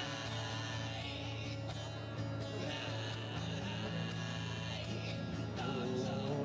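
Music with guitar and singing.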